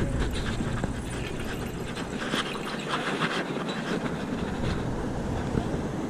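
Bicycle rolling over city pavement: tyre and road noise with irregular rattling clicks from the bike, and wind rumble on the microphone that eases after about a second.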